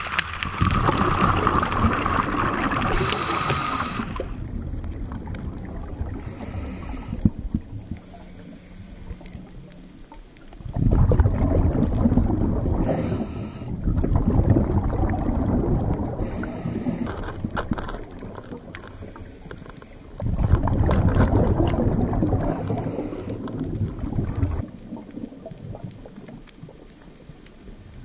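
A scuba diver's regulator breathing underwater. About four long bubbling, rumbling exhalations, each a few seconds, alternate with short hissing inhalations through the regulator.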